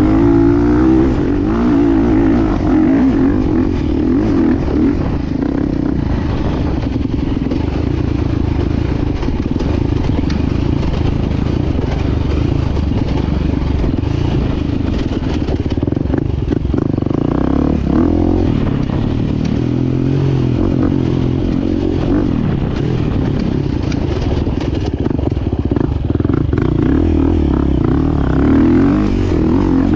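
KTM EXC-F 350 four-stroke single-cylinder enduro motorcycle being ridden on a dirt track, its engine running continuously with revs rising and falling.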